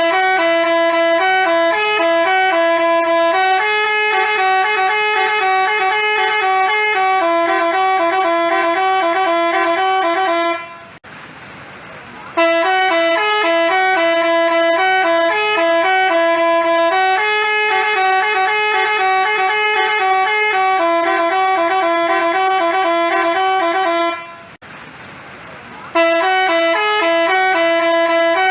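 Basuri telolet musical bus horn playing a tune of quickly changing notes, two sounding together, in three long phrases with short breaks about 11 and 24 seconds in.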